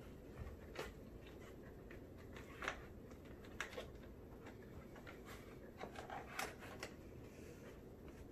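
Handling noise from a plastic portable monitor being held and fitted against a laptop lid: scattered soft clicks and rubs, about a dozen, over a steady low room hum.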